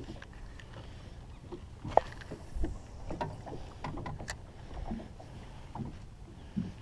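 Small waves lapping against a small boat's hull, with scattered light clicks and knocks from a spinning rod and reel being handled, the sharpest about two seconds in.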